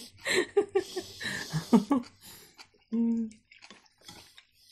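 People laughing, the laughter dying away after about two seconds; about three seconds in, one short hummed "mm" with a mouth full; then faint clicks of cutlery on plates.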